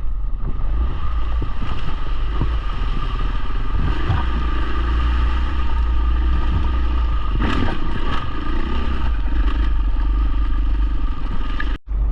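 Dual-sport motorcycle engine running under way, its pitch rising and falling with the throttle, with wind buffeting the microphone. The sound cuts out for a moment near the end.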